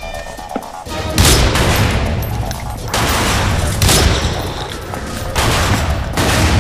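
Film gunfire from pistols: after a quieter first second, dense volleys of shots come in several loud bursts, each trailing off in a reverberant smear.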